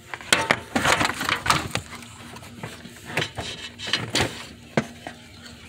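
Fan shroud being pulled and worked loose behind the radiator: a quick run of plastic knocks, clatters and scrapes in the first two seconds, then scattered single knocks.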